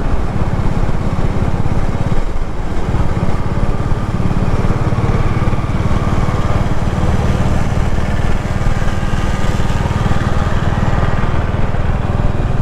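A vehicle's engine running steadily on the move, with road noise.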